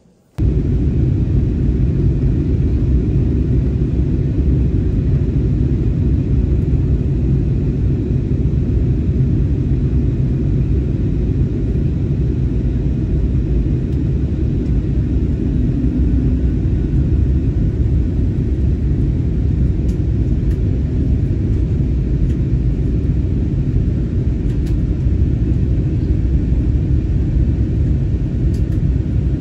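Airliner cabin noise in flight: a loud, steady low rumble of engines and airflow heard from a window seat, starting abruptly about half a second in.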